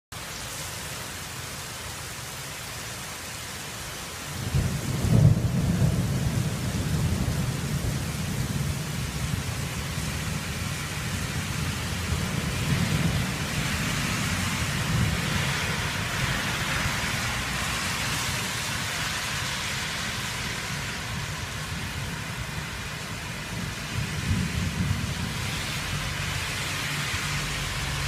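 Heavy rain falling steadily, with thunder that breaks in sharply about four seconds in and rumbles on for a long while, swelling again briefly near the end.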